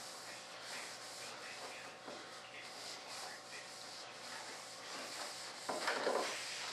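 Cloth rubbing wax by hand over the surface of a resin mold, a steady swishing scrub with a louder stroke near the end.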